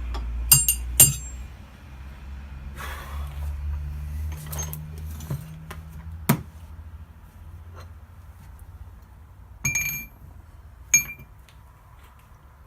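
Small steel parts clinking as they are handled and set down on a workbench: a few sharp, ringing metallic clinks with quieter handling noise between, over a low steady hum.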